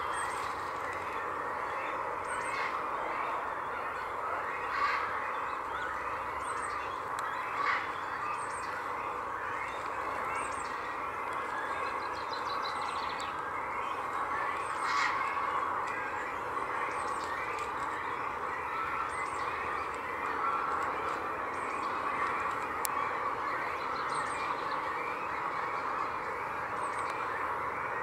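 A steady, dense chorus of many waterfowl calling together, with short, high bird calls scattered through it.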